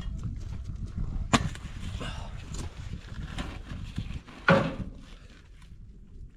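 Steel parts clanking and knocking as the tractor's front weight bracket is handled, with a sharp clank about a second in and a louder knock near the middle, over a low steady rumble.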